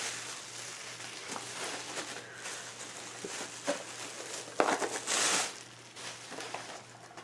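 Bubble wrap crinkling and rustling as a package is unwrapped by hand, with small crackles throughout and a louder rustle about five seconds in.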